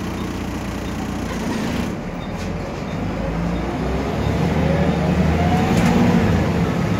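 Volvo B7RLE bus's rear-mounted six-cylinder diesel engine heard from inside the saloon, pulling away: from about three seconds in the engine note and a whine rise in pitch and get louder as the bus accelerates.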